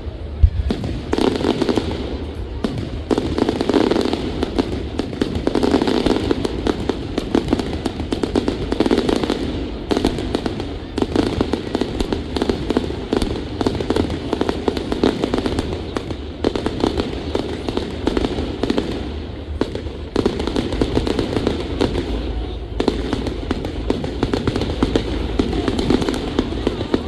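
Fireworks display going off without a break: a dense run of bangs and crackling, with a sharp loud bang about half a second in. Crowd voices run underneath.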